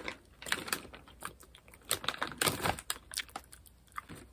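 Person chewing peanut-butter-cup-drizzled popcorn, a run of irregular crisp crunches and crackles.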